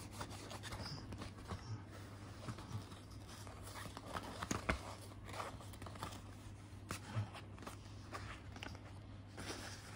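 Soft, irregular rustling and scratching of a kitten's paws on a bedsheet as it pounces on a plastic cable tie dragged across the fabric, over a steady low hum.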